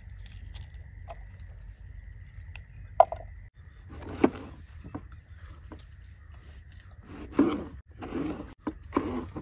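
Kitchen knife cutting tomatoes on a plastic chopping board: a few slicing strokes and knocks of the blade on the board, the loudest in the second half. Under them runs a steady high insect trill.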